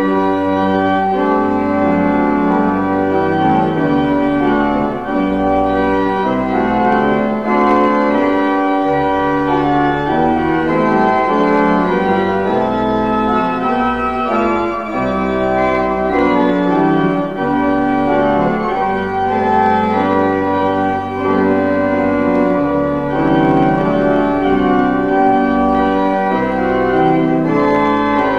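Pipe organ playing a slow piece of full sustained chords that change every second or so over long held bass notes, entering abruptly.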